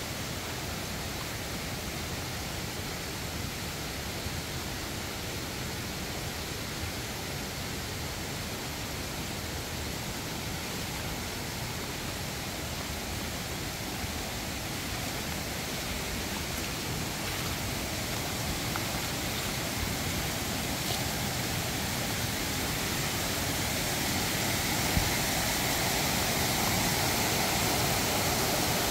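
Steady rush of a forest stream running over rocks, growing gradually louder.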